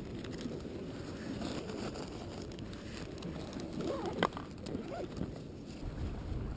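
Steady beach ambience of surf and wind on the microphone, with one sharp click a little over four seconds in and a few faint wavering calls around it.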